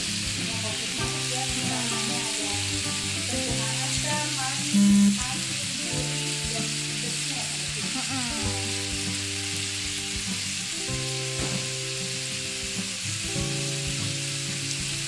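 Rolls of thinly sliced beef sizzling steadily as they grill in a hot pan, their juices starting to run. A brief loud low tone sounds about five seconds in.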